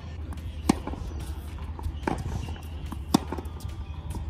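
Tennis ball struck back and forth by rackets in a baseline rally on a hard court, a sharp pock every second or so, the loudest two about three seconds apart, over a steady low hum.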